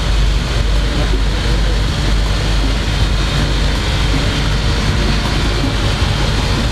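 Loud, steady din of a ship's engine room with its machinery running, a deep hum under a constant hiss.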